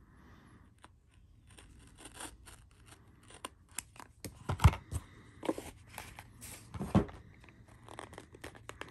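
Product packaging being cut and pulled open by hand, with irregular scraping, tearing and crinkling. There are two louder knocks, about four and a half seconds in and again about seven seconds in.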